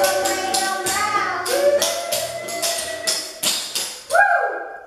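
Clogging taps on shoes striking a concrete floor in a quick, sharp rhythm, over a song with singing.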